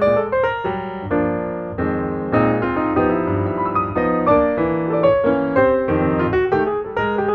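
Background piano music: a quick run of melody notes over sustained chords.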